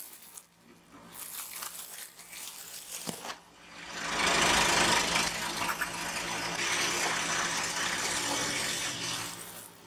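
Car tyres rolling slowly over a water-soaked foam block on a concrete driveway, crushing it. The passing car's tyre and engine noise swells loud about four seconds in and eases off near the end.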